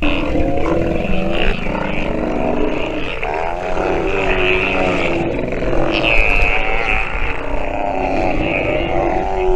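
Steller sea lions calling, several low, wavering bellows and growls overlapping one after another, over a steady low rumble.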